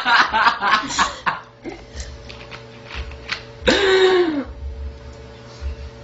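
A girl belching: one loud belch of under a second, falling in pitch, a little past the middle. It follows a second or so of busy vocal noise at the start.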